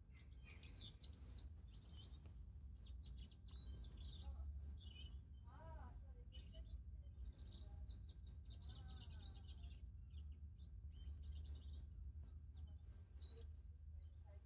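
Faint garden birdsong: several small birds chirping and warbling in quick, high-pitched phrases over a steady low rumble.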